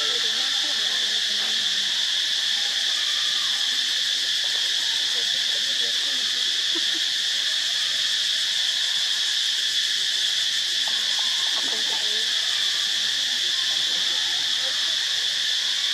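Steady chorus of insects, a constant high-pitched drone that does not change.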